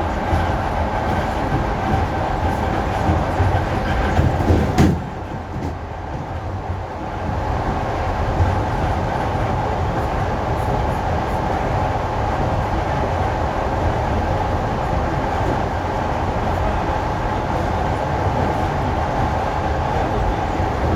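ED4M electric multiple unit running on the line: a steady running noise and rumble with a held whine. About five seconds in there is a sharp click, after which the noise drops for a couple of seconds and then builds up again.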